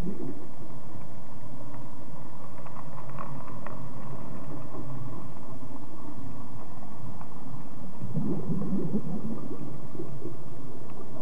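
Low, uneven rumbling of an underwater airlift (suction dredge hose) drawing up sediment, swelling louder about eight seconds in.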